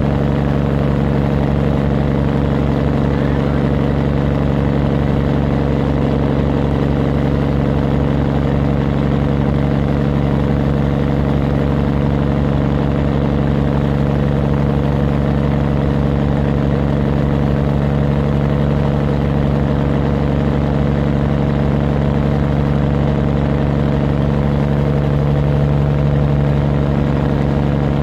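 Fishing boat's inboard engine running steadily at a constant pitch under load while towing a sinking boat on a rope, with the wash of its wake.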